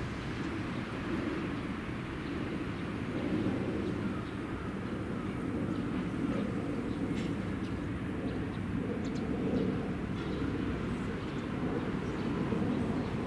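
A steady low rumble of rail traffic on a busy multi-track line, holding even with no clear approach or fade. A few faint, short high chirps or ticks come around the middle.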